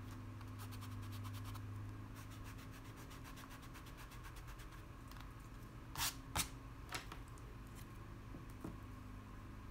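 Eraser rubbing back and forth in quick strokes over pencil lines on a stretched canvas, then two sharp taps about six seconds in, with a faint steady low hum underneath.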